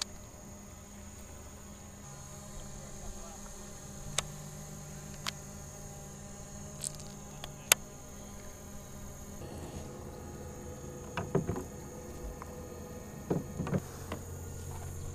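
Steady high-pitched insect chorus in warm summer air, with a few sharp clicks scattered through it and a cluster of louder knocks in the second half.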